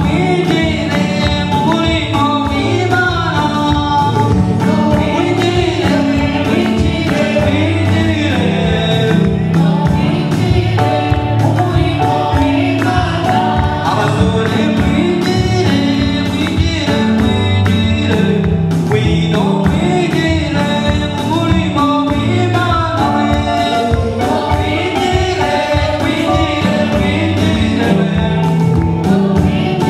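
Live gospel worship song: men singing into microphones, with other voices joining, over band backing with steady bass and an even drum beat.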